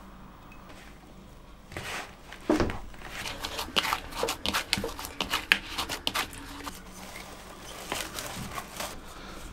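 Hands kneading dough in a plastic mixing bowl: a run of irregular knocks, slaps and crackles starting about two seconds in. Plastic cling film crinkles as it is stretched over the bowl near the end.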